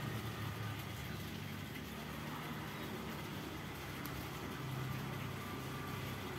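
A steady low engine-like hum, slightly wavering in pitch, over a background hiss.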